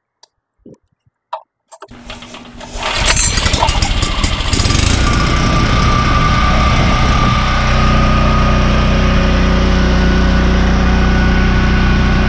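A-iPower AP5000 portable generator's engine being started: a few faint clicks, then it cranks about two seconds in, catches and revs up, and settles into steady running.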